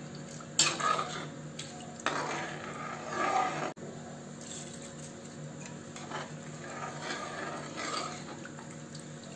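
Steel ladle stirring watery rice in an aluminium pressure cooker pot, scraping and knocking against the pot now and then, with one sharper clink about three and a half seconds in.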